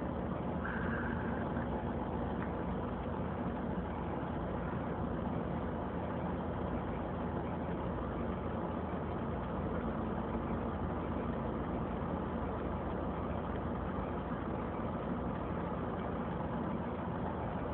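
Steady engine idling and low traffic hum heard from inside a car's cabin while stopped in traffic behind a city bus.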